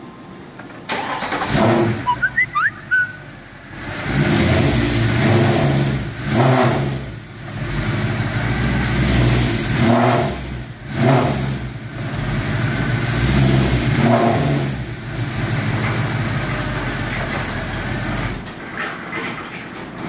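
Mercedes-AMG M156 6.2-litre V8 started about a second in, then blipped up to higher revs several times and let fall back to idle each time, as a check of the engine mounts. The engine is switched off near the end.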